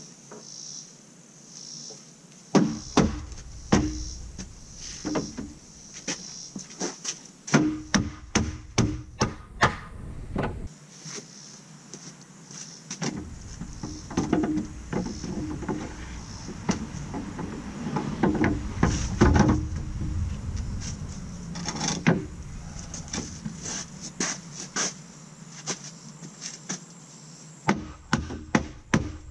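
Wooden shelf boards knocking and clattering against the wooden frame of a display-shelf tower as they are fitted snugly onto its crosspieces: irregular wood-on-wood knocks in clusters, with quieter pauses near the start and near the end.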